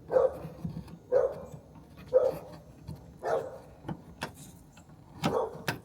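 A dog barking over and over, about once a second, with a few sharp clicks between the barks.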